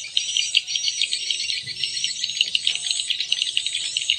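Recorded swiftlet calls played through a small amplifier and two square tweeters, with both stereo channels on at once. The sound is a dense, rapid, high chirping, the kind of lure call swiftlet farmers play to draw swiftlets into a bird house.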